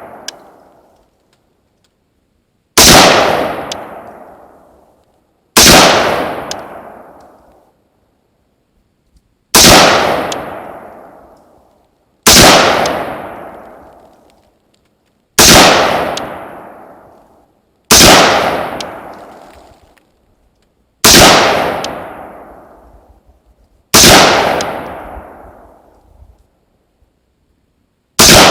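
AR-15 rifle fired in slow, aimed single shots, nine in all, about one every three seconds. Each crack is followed by an echo that dies away over a second or two.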